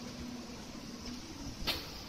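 Electric air blower running steadily, with one brief sharp rustle near the end.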